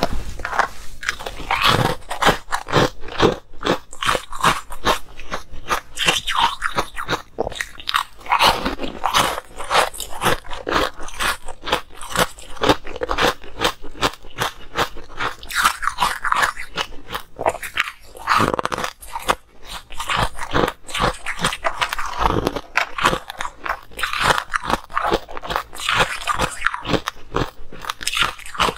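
Close-up biting and chewing of ice cubes: rapid, loud crunching and cracking of ice between the teeth, in runs with short pauses.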